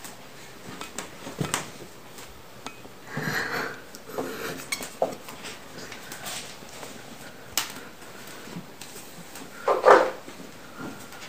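Scattered light knocks, taps and clatter of a blindfolded person feeling her way along a wooden door and household things, with a louder clatter near the end.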